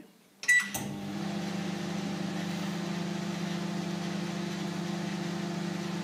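Microwave oven started with a short beep about half a second in, then running with a steady electrical hum while it heats a bowl of water.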